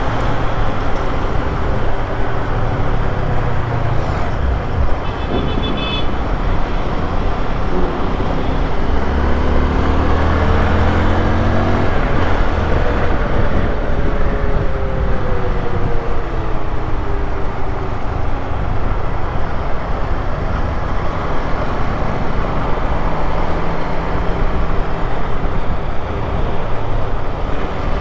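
Honda XRE 190's single-cylinder engine running under way, with steady rushing noise over it. The engine pitch rises and falls in the middle as it speeds up and eases off.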